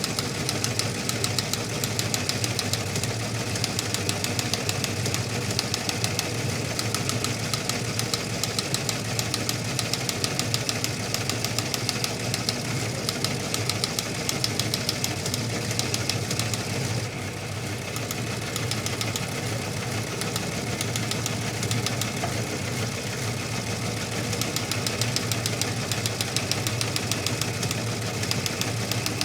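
Teletype machine printing: a rapid, continuous mechanical clatter, with a brief lull a little past halfway.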